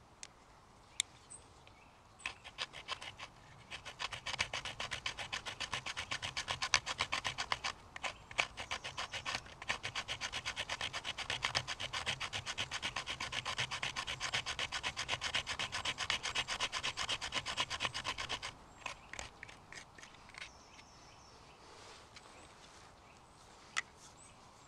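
Folding knife blade scraping hard and fast against a piece of wood, rasping off fine shavings in rapid strokes, several a second. The scraping starts about two seconds in and stops about three-quarters of the way through, leaving a few scattered scrapes.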